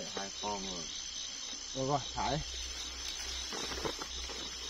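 A steady, high-pitched, pulsing chorus of night insects chirping, with two short bursts of low men's voices, about half a second and two seconds in. A few faint rustles come near the end.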